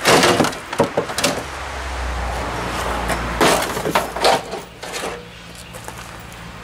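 Metal clanking and clattering from hands-on work on a car's front end: a run of sharp knocks in the first second and more about three and a half seconds in, with a low steady hum between them.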